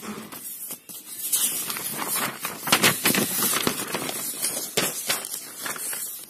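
Sheets of paper rustling and crackling as handwritten note pages are handled and turned, a dense run of crinkles that is loudest around the middle.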